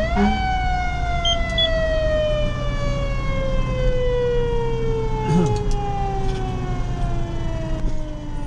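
A fire engine's mechanical siren winds up quickly, then coasts down in one long, slowly falling wail lasting about eight seconds. The engine and road rumble run steadily underneath.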